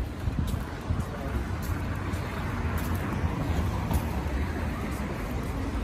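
Street traffic noise: a steady rumble of road vehicles.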